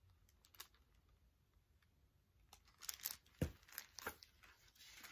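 Near silence with faint rustles and clicks of a hardcover picture book being handled, a few sharper ticks coming about three seconds in.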